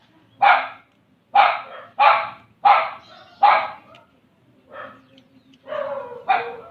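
A dog barking repeatedly: a quick run of five barks, a pause, then a few more.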